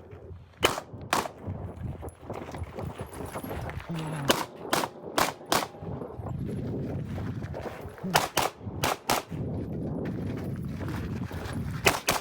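Glock 19 9mm pistol fired in quick strings of shots, about a dozen in all: two shots, then a pause of about three seconds, then four fast shots, another four, and a final pair near the end. The pause after the first two shots fits the stoppage the shooter describes, a spent casing that failed to eject.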